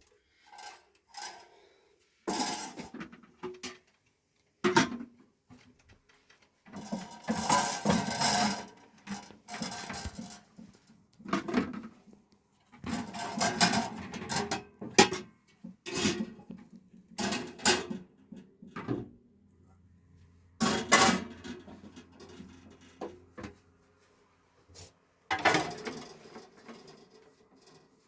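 Dishes and pots clattering as they are handled, in irregular knocks and scrapes with short pauses between them.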